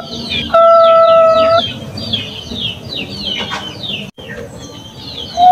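Bangkok-bred zebra dove (perkutut) cooing: a short note, then one long, steady drawn-out coo about half a second in that lasts about a second, with rapid high chirping of small birds throughout.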